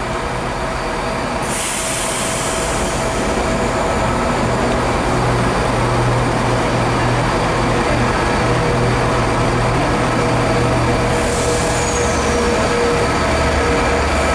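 Class 57 diesel locomotive running as it approaches under power hauling tank wagons: a steady low engine drone, growing slowly louder. A brief high hiss comes about a second and a half in, and a short high falling squeal near the end.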